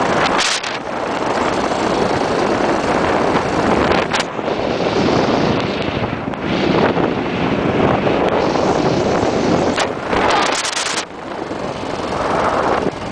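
Cagiva W16 motorcycle's single-cylinder engine running while riding along a dirt road, largely covered by heavy wind noise on the microphone. Louder gusts come about half a second in, around four seconds in and for about a second around ten seconds in.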